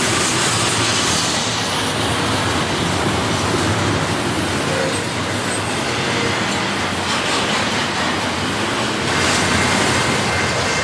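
Double-stack intermodal freight train passing close by, its container-laden well cars and steel wheels running steadily and loudly on the rails.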